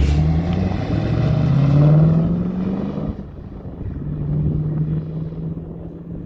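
Dodge Challenger engine revving up, its pitch climbing for about three seconds, then dropping off suddenly and settling into a steadier drone.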